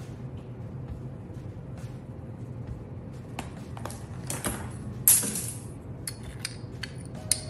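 A metal spoon clinking and scraping against a small ceramic bowl as salt and baking soda are tipped and scraped into a bowl of flour. The loudest scrape comes about five seconds in.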